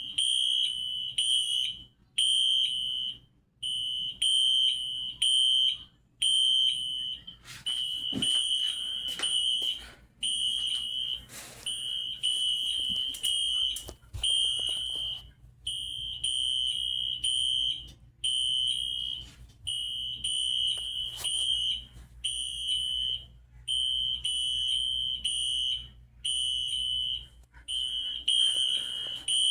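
Several fire alarms sounding together: a shrill high-pitched tone that sounds in bursts of about a second with short breaks between them.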